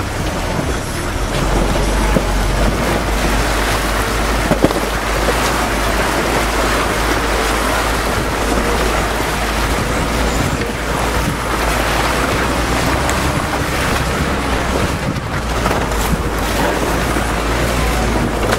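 UAZ Patriot off-roader driving through flooded, muddy ruts, heard from inside the cab: a low engine rumble under a steady wash of water and mud splashing around the wheels, with one short knock about four and a half seconds in.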